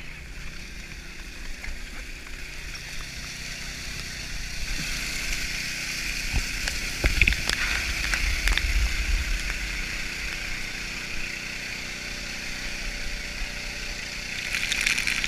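Steady hiss of spraying water, with wind rumbling on a body-worn action camera's microphone. A few knocks on metal scaffold decking come about halfway through.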